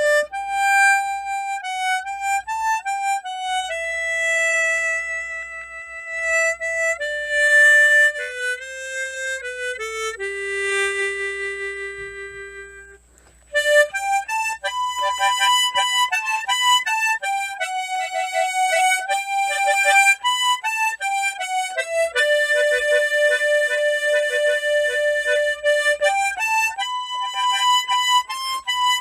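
Tremolo harmonica playing a slow, lyrical melody line in held notes. The phrase ends about halfway through, there is a brief pause, and the melody resumes with some notes pulsed rapidly.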